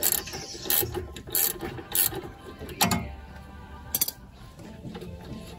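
Ratcheting wrench clicking in short strokes as it loosens a 10 mm nut on the linkage of a BMW E46's xenon headlight-levelling ride-height sensor. The clicks are spaced unevenly and stop about four seconds in.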